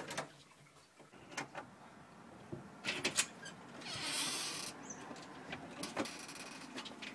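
A doorknob turned and the latch clicking as a door is opened, followed by scattered clicks and knocks and a brief hiss about four seconds in.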